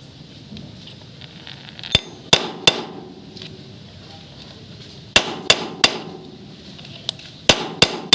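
Hammer striking metal in three quick bursts of about three sharp blows each, the strikes ringing briefly.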